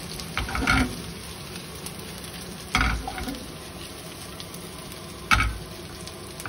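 Pork belly chunks, onion and garlic sizzling as they fry in the pork's own rendered fat in a nonstick pan, stirred with a wooden spatula. Three louder knocks of the stirring stand out: about half a second in, near three seconds, and just after five seconds.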